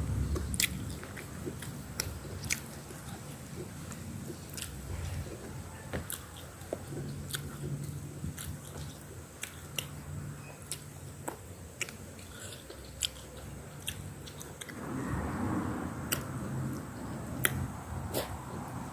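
A person chewing and smacking food close to the microphone, with many short sharp mouth clicks. A low hum comes and goes, and a broader rushing noise swells near the end.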